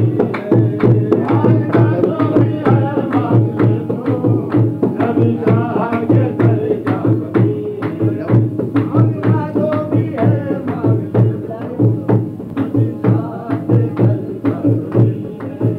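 Devotional singing over a steady, evenly repeating hand-drum beat.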